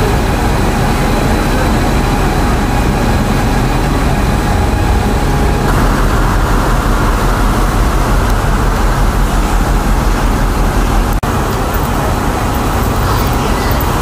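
Steady, loud traffic and vehicle noise, with a brief dip about 11 seconds in.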